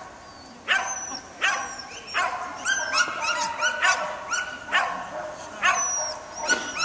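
Norwegian Buhund yapping over and over, a string of sharp, high barks about two a second, starting about a second in. Barking is its way of driving the sheep.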